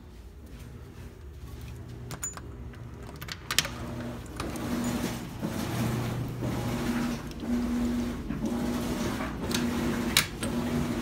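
A running laundry machine: a steady low motor hum with a drone that pulses a little faster than once a second, growing louder as it comes closer. A few sharp clicks come in the first few seconds.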